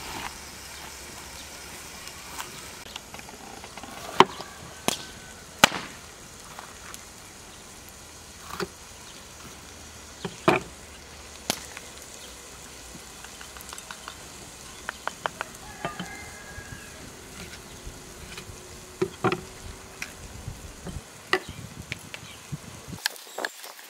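A wood campfire crackling with scattered sharp snaps under a lidded pan of sizzling lamb, over a steady hiss. Later come the softer clicks and cuts of a green bell pepper being cored by hand and sliced with a knife.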